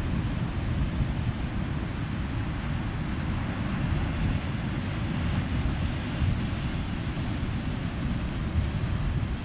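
Ocean surf with wind buffeting the microphone: a steady rush with a heavy low rumble and no single wave standing out.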